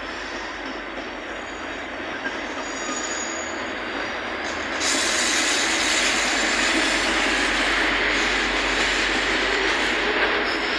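V/Line N class diesel-hauled InterCity train rolling slowly past over pointwork, with steady wheel-on-rail running noise. It grows louder and hissier about five seconds in as the carriages pass close.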